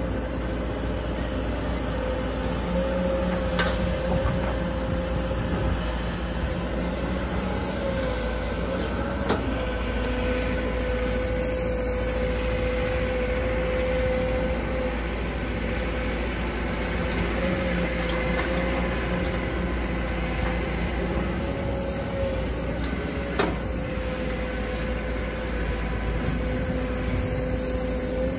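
Kobelco SK200 tracked excavator working: its engine runs steadily under a whine that wavers in pitch as the arm digs. A few sharp knocks come through, the clearest near the end.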